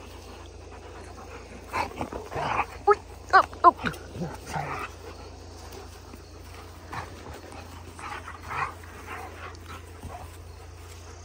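Dogs at play: a German Shepherd puppy and a bigger dog tussling, with a quick run of short barks about three seconds in and softer scattered vocal sounds later.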